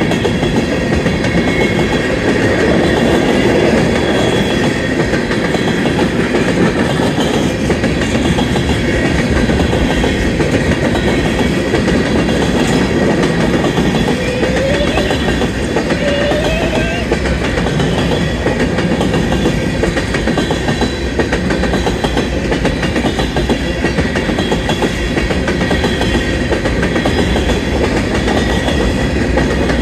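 Freight cars of a Union Pacific manifest train rolling past, a steady rumble with the clatter of wheels over the rails.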